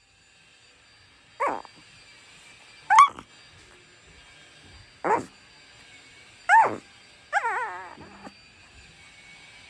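Dog barking excitedly: four sharp barks about a second and a half apart, each dropping in pitch, then a longer wavering yelp near the end.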